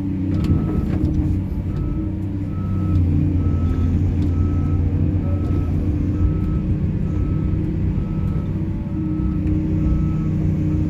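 Heavy machine's diesel engine running steadily while its reversing/travel alarm beeps at an even pace, a little more than once a second.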